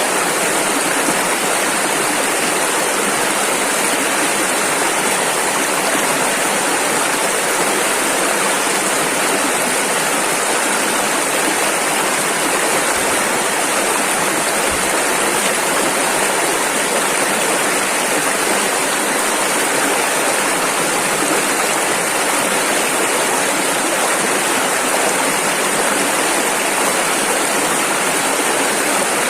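Rushing river water, a steady, even rush of fast-flowing rapids with no breaks or changes.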